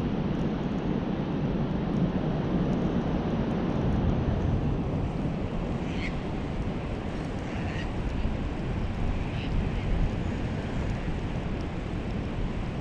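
Wind buffeting the microphone as a steady low rumble, with a few faint, short high chirps about halfway through.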